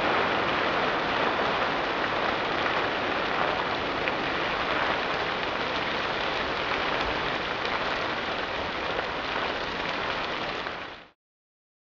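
Turkey fryer oil fire: burning cooking oil flaring and spattering in a steady, crackling rush, the result of a frozen turkey lowered into hot oil with the burner left on. Cuts off suddenly near the end.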